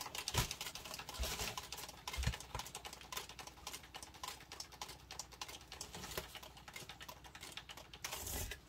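Stainless steel cake turntable spun by hand, giving a rapid, irregular clicking rattle as it turns, with a few soft knocks in the first couple of seconds.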